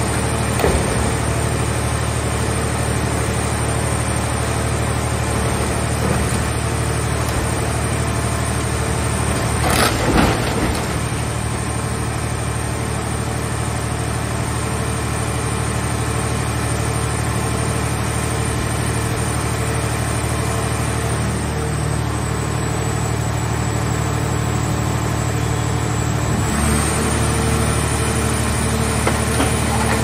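Gasoline engine of a mobile hydraulic car baler running steadily while the press flattens a car shell, with a loud crunch of metal about ten seconds in. Near the end the engine note changes as the load shifts.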